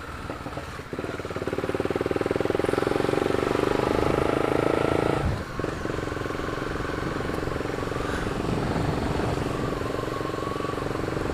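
Honda CB 300's single-cylinder engine running on the move, getting louder about a second in and holding steady, with a short break a little past five seconds before it settles again.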